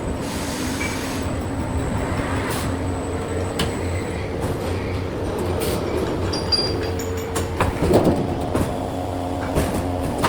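Automatic sheet-metal duct production line running: a steady machine hum with scattered metal clanks and knocks, the loudest about eight seconds in.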